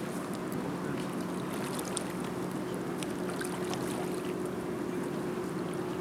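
A boat's engine running with a steady low hum over a haze of water and wind noise, with a few faint clicks.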